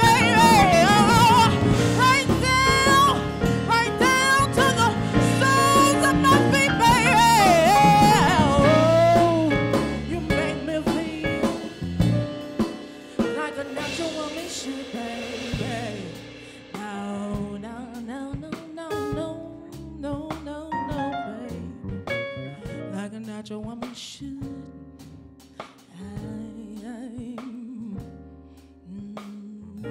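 Female singer belting a soul ballad with long vocal runs over a live band of drums, electric bass and keyboard. From about ten seconds in the music grows quieter and sparser, with keyboard chords carrying the end.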